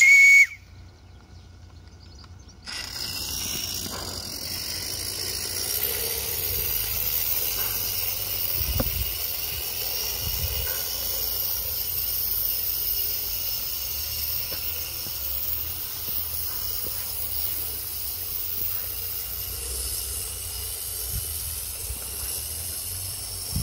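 Regner live-steam tram's whistle, a short loud blast that ends about half a second in, then after about three seconds a steady hiss of steam as the small steam tram runs.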